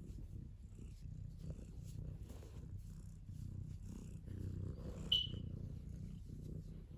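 Tabby cat purring steadily while being stroked, a continuous pulsing low rumble close to the microphone. A brief high-pitched squeak about five seconds in.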